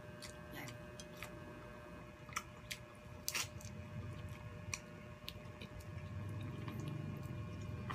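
Close-up mouth sounds of eating buttery baked shrimp by hand: wet chewing and lip smacks, with a scattering of sharp clicks about two to five seconds in.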